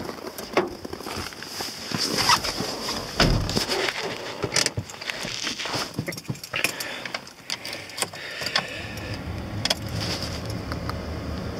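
Car keys jangling, with irregular knocks and clicks as someone settles into the driver's seat. A low steady hum sets in about eight seconds in.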